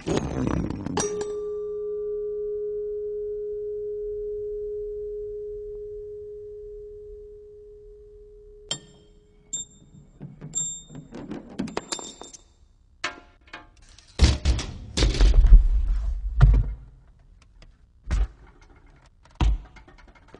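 Loose car parts striking, rolling and knocking against one another and a wooden floor in a chain reaction. A struck metal part rings with one long steady tone that fades over about seven seconds, followed by light ticks and metallic tinkles, a run of heavy thumps about fifteen seconds in, and two single thuds near the end.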